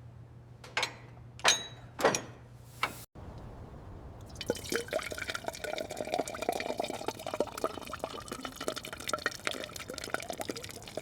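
Liquid sounds: a few separate drips or splashes, then after a brief break a steady run of liquid pouring with a dense patter of small pops.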